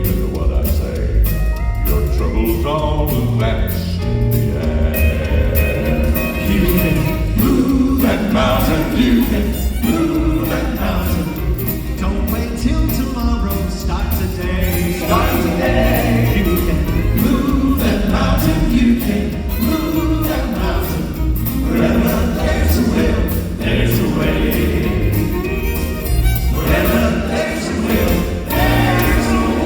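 Gospel vocal group singing in harmony over an accompaniment with strong bass and a steady beat.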